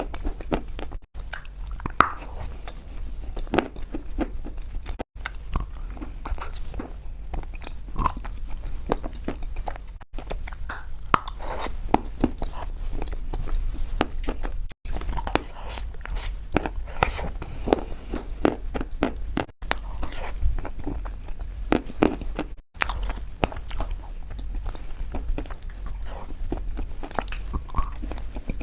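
A person biting and chewing chalk: a steady run of crisp, irregular crunches, broken by a few very brief silent gaps.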